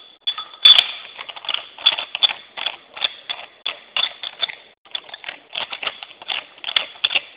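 Irregular sharp clicks and knocks of an Invert Mini paintball marker being handled and put together, roughly two or three a second, from metal and plastic parts such as the barrel being fitted.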